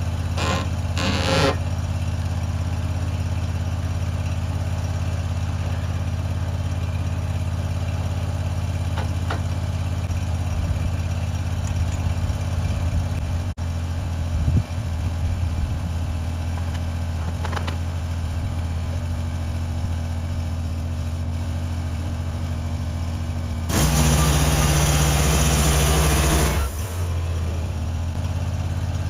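An engine running steadily. Near the end it gets louder for about three seconds with a harsh, hissing noise, then settles back.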